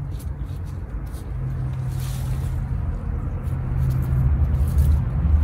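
A low, steady motor hum, like an engine running nearby, with a higher tone in it that comes in about a second in and drops away a few seconds later.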